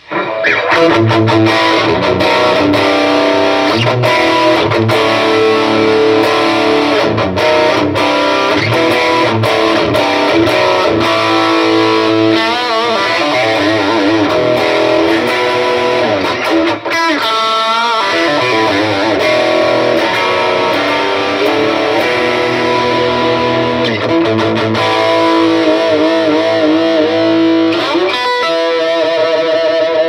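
G&L Legacy electric guitar played through an amplifier, starting right at the beginning and running on without a break. The phrases include several notes that waver in pitch with vibrato or bends, around the middle and again near the end.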